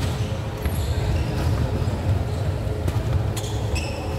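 Badminton rackets striking a shuttlecock in a rally, a sharp hit every second or so. A shoe squeaks on the court floor near the end, over a steady low rumble.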